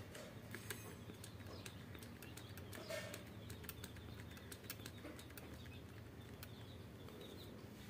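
A trigger spray bottle of Colin glass cleaner squirting repeatedly onto lime in a small steel bowl: a string of faint, short squirts.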